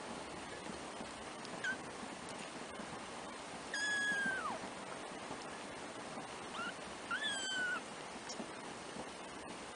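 Three-week-old kittens mewing: four thin, high mews, a short one, then a long one that drops in pitch at its end, then a short one and a longer one, over a steady hiss.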